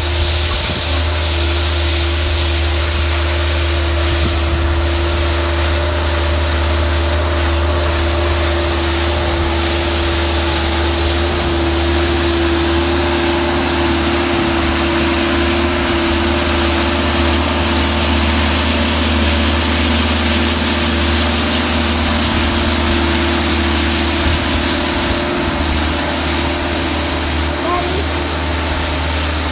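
Bobcat skid-steer loader running steadily with a steady whine, its rotary broom attachment sweeping and throwing snow with a constant hiss.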